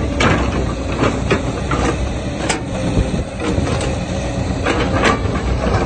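A heavy machine's engine running steadily, with irregular knocks and clanks through it.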